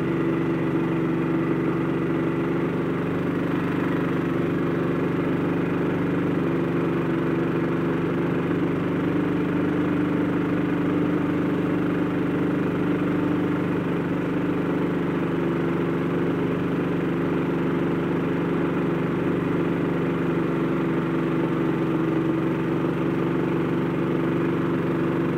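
Brand-new Honda 13 HP single-cylinder four-stroke engine running steadily at a constant speed, powering a small boat.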